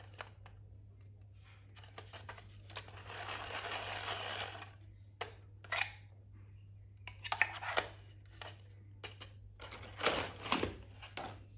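Plastic clicks, taps and scrapes of a hand-crank plastic pencil sharpener being handled, its shavings drawer pulled out and pushed back in, with a steady low hum underneath.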